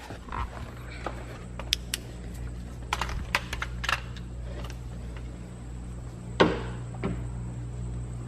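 Scattered clicks and knocks of tools and parts being picked up and set down while cleaning up, with one louder knock about six seconds in, over a steady low hum.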